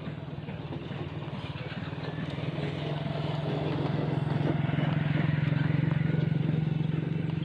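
A vehicle engine running steadily, growing louder over the first six seconds and easing off near the end.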